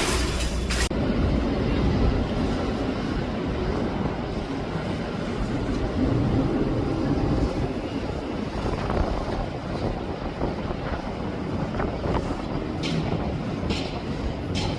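Wind rumbling and buffeting on a handheld phone's microphone outdoors, an uneven low rush with no speech.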